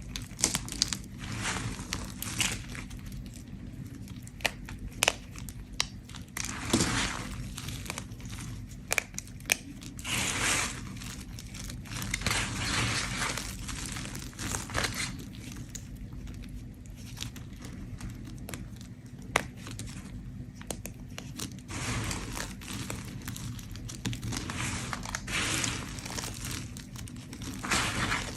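A bar of soap being scraped with a blade: a run of irregular crumbly, crinkling scraping strokes with scattered sharp clicks, over a steady low hum.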